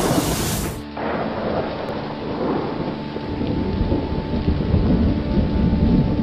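Thunderstorm: heavy rain and rumbling thunder. A loud hissing crash cuts off sharply under a second in, giving way to a lower, steadier rumble of rain with faint steady tones underneath.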